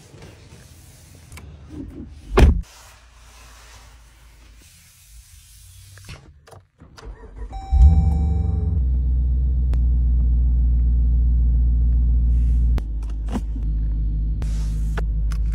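Dodge SRT V8 started from the push button about eight seconds in: a brief crank, then the engine catches and settles into a steady fast idle. About thirteen seconds in the idle drops to a lower, steady rumble. Earlier there is a single thump about two seconds in.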